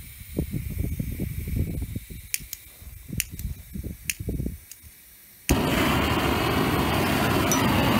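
Propane hand torch lit about five and a half seconds in: a sharp pop as the gas catches, then a loud, steady roar of the flame with the gas open to working pressure. Before it catches there is low rumbling and a few light clicks.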